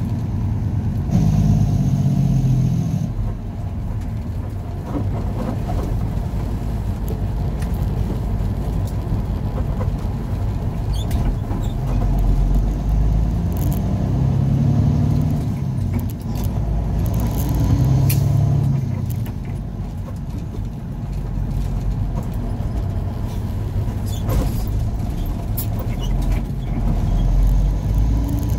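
Truck engine and road noise inside the cab while driving through city traffic, steady and low, swelling several times as the truck pulls away and picks up speed.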